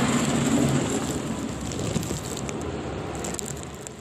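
A snowplow truck passing close by, its engine running and the lowered blade pushing through slush in a noisy rush. It is loudest at the start and fades away over the first two seconds, leaving a steady hiss.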